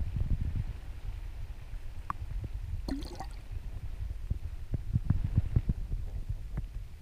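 Muffled low rumble and irregular low thumps of stream current moving past an underwater camera, heard from beneath the surface, with a couple of small sharp clicks about two to three seconds in.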